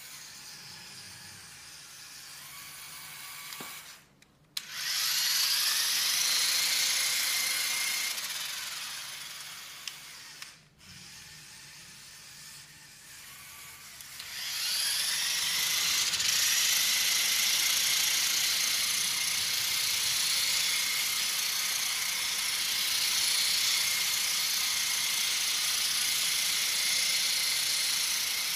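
Spinning bar blade of a Lego Technic battlebot, driven by two Lego RC motors: a high motor whine that spins up about four and a half seconds in and slowly winds down until it stops near ten seconds. It spins up again about fourteen seconds in and then runs on steadily.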